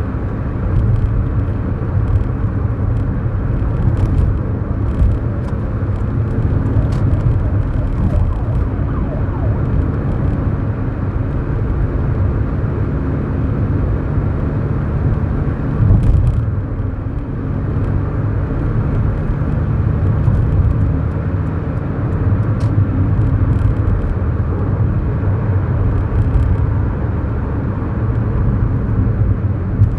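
Cabin sound of a 2011 Kia New Morning's 999cc four-cylinder engine pulling the car along, with steady road and tyre rumble. The engine note drops and changes about halfway through.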